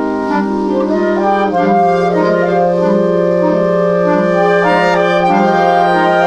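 Slow clarinet music in sustained chords: several held notes sound together and shift to new pitches every second or two.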